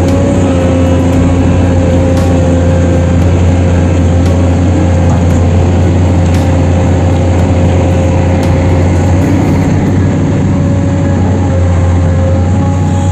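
Heavy machinery engine running close by at a steady speed: a deep, even drone with a constant higher whine over it.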